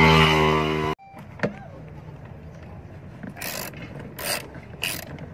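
A loud steady hum cuts off abruptly about a second in. Then a ratchet wrench clicks in short strokes, three in the last two seconds, working loose the mounting bolts of a car's coolant expansion tank.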